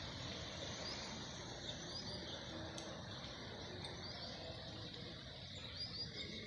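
Steady hiss of rain falling on paving and trees, with a bird giving a few short, high chirps over it.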